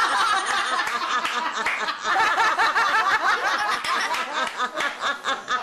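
Several people laughing together in continuous overlapping bursts, with a baby's giggling laughter among the adults' laughter.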